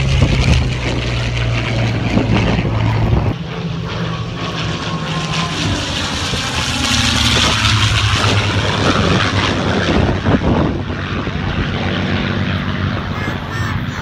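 Piston-engine propeller fighter planes flying past in formation: a steady engine drone that swells about seven seconds in as they pass closest, the pitch dropping slightly as they go by.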